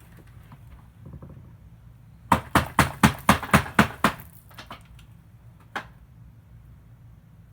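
A quick run of about eight sharp knocks, roughly four or five a second, followed by a few fainter clicks and one last single knock, over a faint steady low hum.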